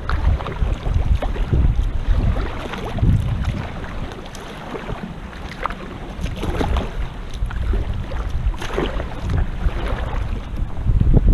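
Wind buffeting the microphone in gusts while choppy water slaps and splashes irregularly against a kayak hull, easing off briefly in the middle.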